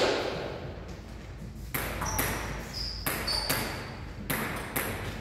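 Table tennis ball bouncing: about seven sharp, irregularly spaced clicks, several with a brief high ring after them.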